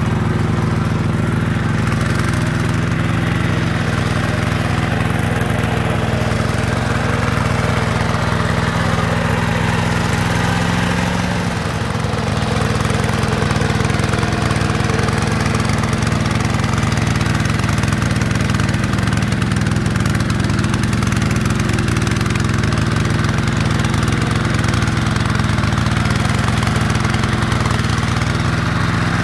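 Yanmar single-cylinder diesel engine of a hand tractor running steadily under load while it tills a flooded, muddy rice field. Its note dips briefly about eleven seconds in, then steadies again.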